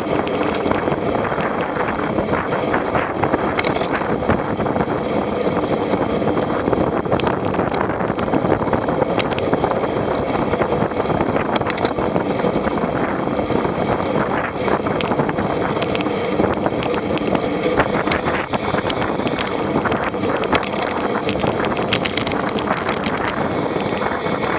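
Steady vehicle running noise mixed with wind buffeting the microphone, with scattered light clicks and no break.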